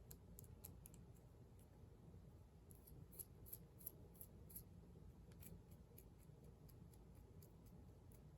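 Faint, irregular metallic clicks of a nut being threaded by hand onto a bolt behind a wing nut, with a quicker run of sharper clicks about three to four seconds in.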